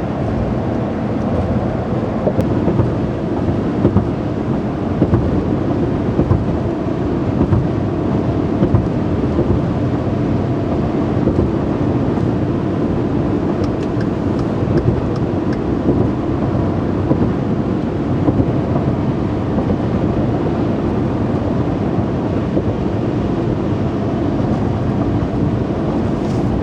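Steady low rumble inside a truck's cabin at highway speed: engine and tyre road noise.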